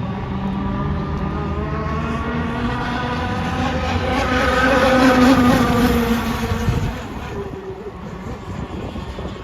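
Gas-powered RC boat's two-stroke engine running at speed as the boat passes by. It grows louder to a peak about five seconds in, its pitch drops as it goes past, and it fades away.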